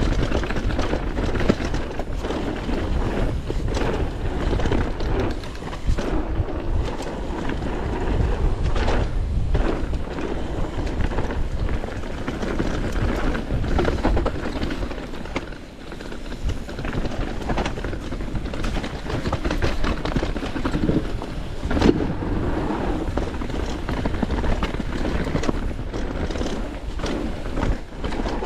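Downhill mountain bike running down a rough trail: a heavy low rumble from rushing air on the microphone, with tyre noise and frequent rattles and knocks from the bike over bumps.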